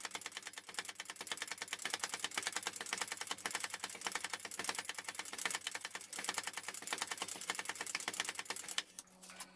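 Power hammer rapidly striking a red-hot steel bar between its dies, several blows a second, drawing out the stock. The blows stop suddenly near the end, leaving a low hum.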